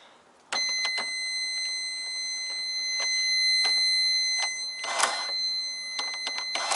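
Electronic cash register sounding a continuous high-pitched error beep that starts about half a second in and does not stop. Key presses click over it: the register has rejected the entry and its drawer stays shut.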